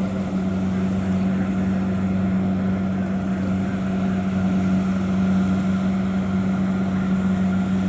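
Kubota DC70 Plus combine harvester's diesel engine running steadily as it cuts rice, a constant even-pitched drone.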